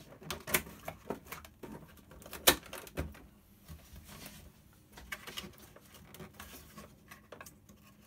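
Scattered clicks and light knocks of hands handling a 1/10-scale RC crawler body, the sharpest click about two and a half seconds in.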